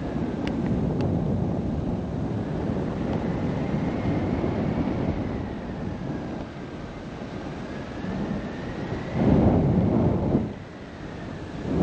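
Airflow buffeting the microphone in flight under a paraglider, with a louder gust about nine seconds in that drops off sharply a second and a half later. A faint thin whistle drifts slowly up and down in pitch underneath.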